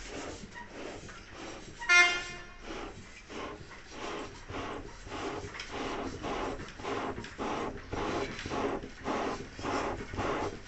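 Tinsmith's bellows being pumped to blow air into the fire while a copper pot is heated for tinning: a steady rhythm of airy puffs, about two a second, growing louder. A brief high-pitched sound cuts in about two seconds in.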